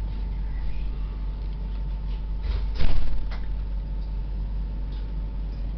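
Toulouse T1 tram running on its rails: a steady low rumble with a thin, steady whine, and one brief louder knock about three seconds in.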